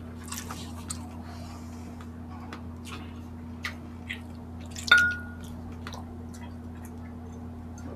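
Soft mouth clicks and smacks from eating, then about five seconds in a single sharp clink of glass water mugs touched together, with a short ringing tone that fades within half a second. A steady low hum runs underneath.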